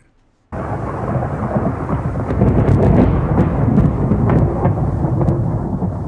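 Thunder: a rumbling thunderclap breaks in suddenly about half a second in and keeps rolling, with sharp crackles through the middle.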